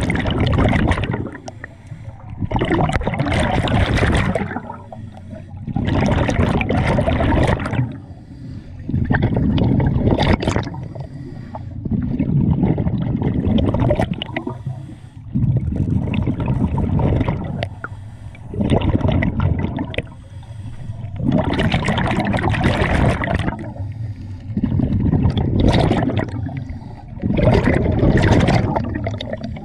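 Scuba diver breathing through a regulator underwater: exhaled air bubbles out in loud gurgling bursts about every three seconds, with quieter inhalations between, around ten breaths in all.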